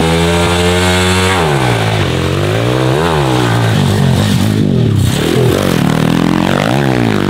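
MRF 140 RC pit bike's small four-stroke single-cylinder engine being ridden hard. It is revved high and held for about a second, then the revs drop and climb again several times as the throttle is rolled off and back on.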